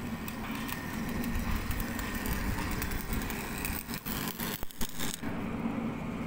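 Steady hum of running plant machinery, with scattered crackles. There is a short stretch of knocks and rustling on the microphone about four to five seconds in.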